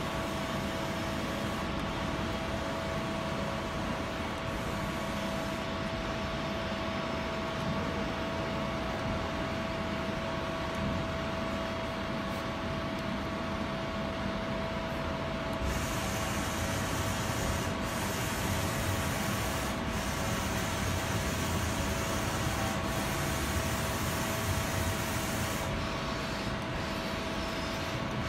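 Samsung SMEC PL60L CNC turning center running: a steady machine hum with a constant whine. A higher hiss joins a little past halfway and stops a few seconds before the end.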